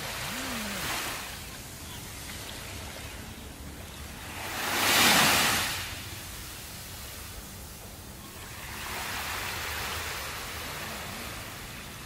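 Small waves breaking and washing up a sandy beach, rising and falling in swells: one loud break about five seconds in, with softer washes near the start and in the second half.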